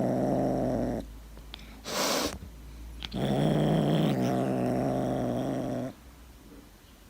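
A pet growling in two long, steady growls of about three seconds each, with a short hissing burst between them.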